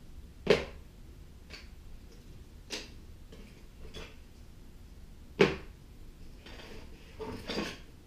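Hard kit parts knocking as they are taken out of a cardboard box and set down one at a time: two sharp knocks, about half a second in and a little past five seconds, with lighter taps between and cardboard rustling near the end.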